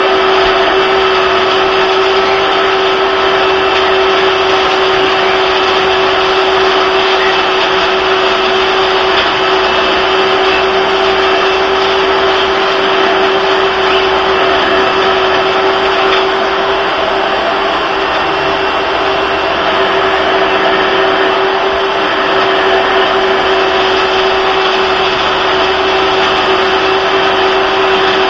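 Household vacuum cleaner running loud and steady, its motor whine holding one constant pitch over a dense rushing of air.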